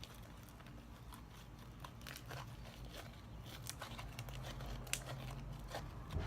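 Hands kneading homemade slime: irregular small sticky crackles and clicks, growing busier in the second half, with a couple of sharper clicks late on.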